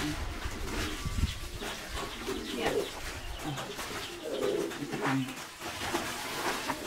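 Low-pitched bird calls repeating every second or so, with a few light knocks in between.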